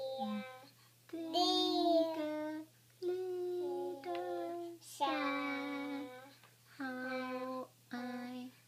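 A young child singing a song in a string of drawn-out notes, each phrase about a second or so long with short breaks between.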